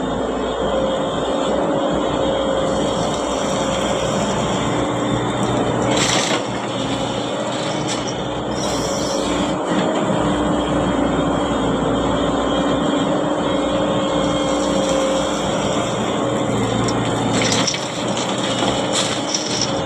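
Heavy diesel earthmoving machinery running steadily with a constant drone, with a few sharp knocks, one about six seconds in and a couple near the end.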